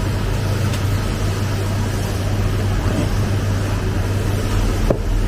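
CNC milling machine running with a steady low hum and an even noise over it.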